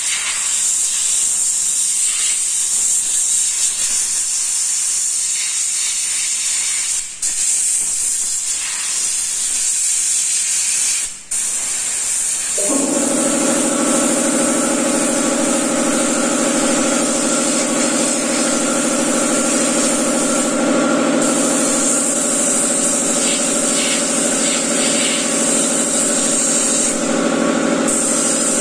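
Airbrush spraying paint, a steady high hiss of compressed air that breaks off briefly twice as the trigger is let go. A little before halfway, an air compressor's motor starts and runs with a steady hum under the hiss.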